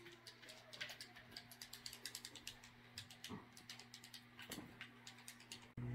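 Faint, irregular clicking of game controller buttons, several clicks a second, over a faint steady hum.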